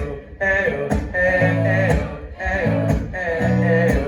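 Live acoustic guitar strumming chords in a steady rhythm, with a voice singing a wordless melody over it.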